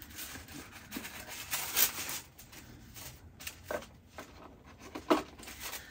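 Paper and cardboard rustling as a perfume box is opened by hand and the paper and sample cards inside are handled, with two short knocks about four and five seconds in.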